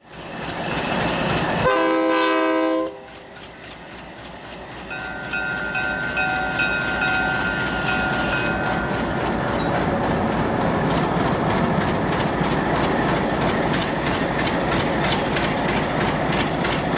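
A diesel locomotive's horn sounds a short loud chord about two seconds in, then a quieter horn sounds from about five to nine seconds. Throughout, a train runs past with a steady rumble and rhythmic wheel clatter on the rails.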